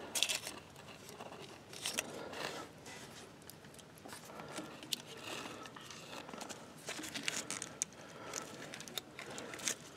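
Faint handling noises: scattered light clicks and brief rustles, as when hands feel over a tractor starter's wiring and connections.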